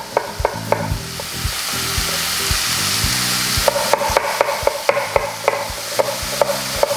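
Chef's knife chopping onion on a wooden cutting board in a run of quick knocks, about three a second at first and faster, about four a second, from about halfway. Underneath, pork liver sizzles as it sears in the pan; the hiss alone carries the middle of the stretch.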